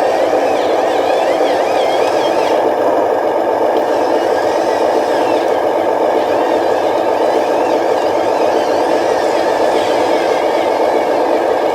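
Radio-controlled construction model running with a steady, unbroken engine-like drone.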